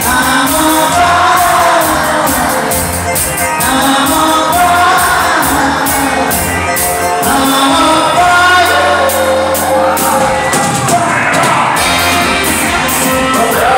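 Live Goan dance band playing amplified music with a singer, keyboard and a steady beat. The bass drops out for a moment around nine seconds in, then returns.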